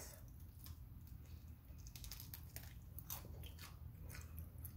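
Close, faint chewing of a crisp baked-cheese (Folios) tostada topped with chicken and guacamole: a scatter of soft crunching clicks.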